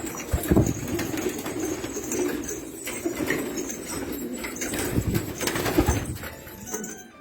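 A flock of domestic pigeons cooing continuously, with a few low thumps about half a second in and again around five to six seconds in.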